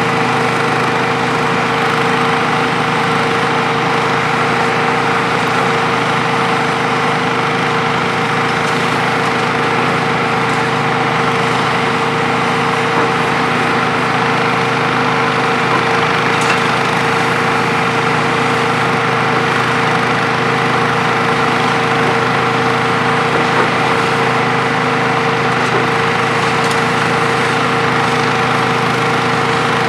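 Hitachi ZX 470-3 high-reach demolition excavator running steadily. Its diesel engine and hydraulics make an even drone with a constant hum that holds the same pitch throughout.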